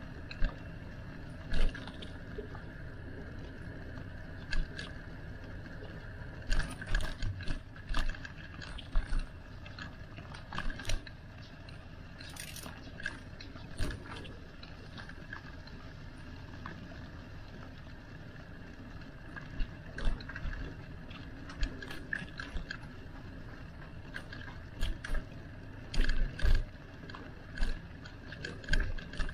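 A bicycle being ridden: steady rolling noise with irregular sharp clicks and rattles from the bike, coming in clusters a few seconds in and again near the end.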